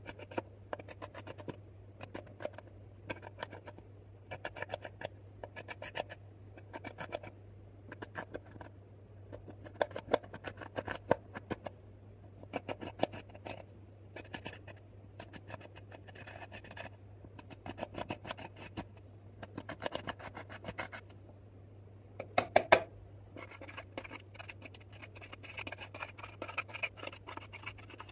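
Pressed eyeshadow pans being scraped and crushed with the edge of a metal lipstick tube: short bursts of crisp, crumbly scratching about once a second, with a few louder strokes and a longer run of scraping near the end.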